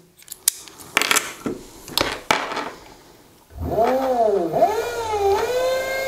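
A few sharp clicks from handling the ignition key switch, then about three and a half seconds in the brushed electric motor spins up on the twist throttle. Its whine dips, rises and settles to a steady pitch over a low hum.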